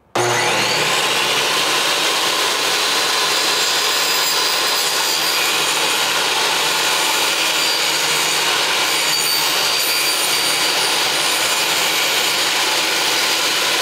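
Portable table saw running steadily while it cuts a quarter-inch dado into a wooden cabinet panel. The sound comes in abruptly just after the start.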